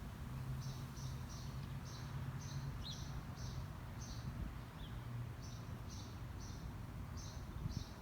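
Short high-pitched chirps from a small animal, repeated about twice a second with a brief pause near the middle, over a steady low hum.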